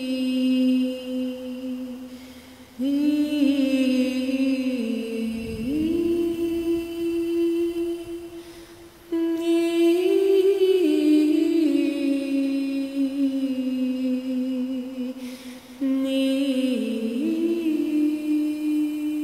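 Meditative wordless vocal humming in a chant-like music track. Long held notes shift pitch in small steps, and a new phrase starts abruptly about every six seconds, then slowly fades.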